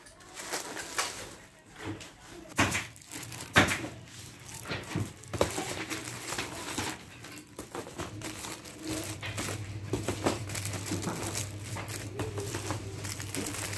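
Plastic film on wrapped picture frames crinkling and crackling as the frames are handled and shifted, with sharp clicks and knocks throughout, two louder ones a few seconds in. A low steady hum starts about nine seconds in.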